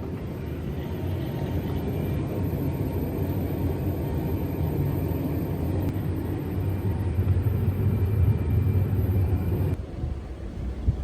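Steady low rumbling noise, like a vehicle's road noise, that cuts off abruptly near the end.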